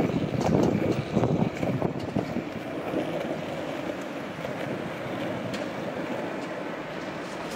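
Skateboard wheels rolling on asphalt with a steady rumble, rougher and louder for the first second or so, with wind buffeting the microphone.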